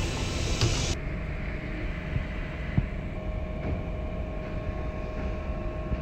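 Steady low background rumble of ambient noise, with a faint steady hum that joins about three seconds in.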